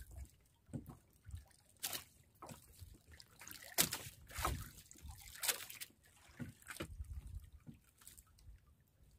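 Small splashes and trickles of water at the side of a small outrigger fishing boat. They come as brief, uneven plops spread throughout.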